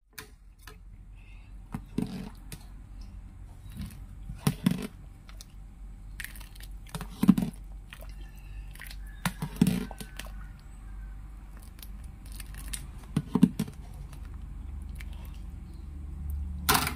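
A ladle stirring and scooping in a pot of mung bean porridge, giving a handful of scattered soft knocks and scrapes a few seconds apart over a low steady hum.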